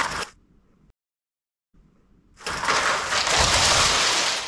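Lego bricks clattering and tumbling as a model collapses: a dense clatter that dies away just after the start, then after about two seconds of silence starts again and runs for about two seconds.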